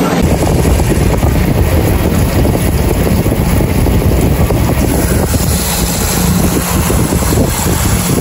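Kitchen faucet spray pouring into a metal pot of raw rice, a steady splashing rush of water as the rice is rinsed.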